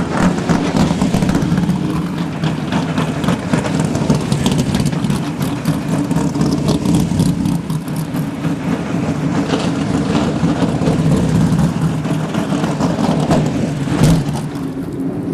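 Race car engine running steadily at a rough, loud idle, with a sharp crack about fourteen seconds in.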